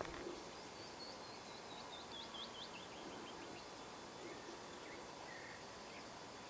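A small bird singing a quick series of short, clear notes that fall steadily in pitch over about two seconds, followed by a couple of faint chirps, over a faint steady outdoor hiss.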